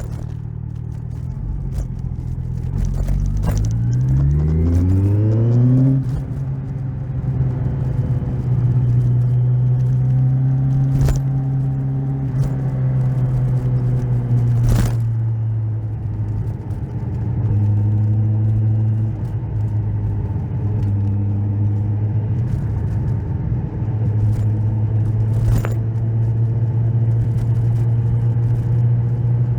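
Kawasaki Z1000SX's inline-four engine pulling up through the revs with a rising note from about three to six seconds in, dropping as it shifts up, then running at a steady cruising note. A few sharp knocks sound over it.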